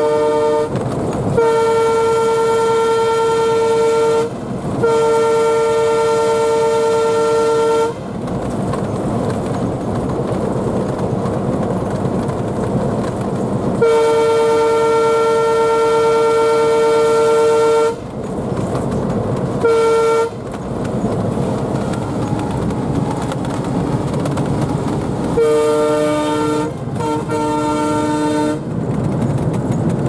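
Alco WDM-3D diesel locomotive's horn sounding in repeated blasts at about 100 km/h: a long blast broken once about four seconds in, another long blast about 14 s in, a short toot around 20 s, and a last blast near the end that adds a lower second note. Between the blasts, the steady running of its 16-cylinder ALCO 251 diesel engine and wheels on rail, heard from inside the cab.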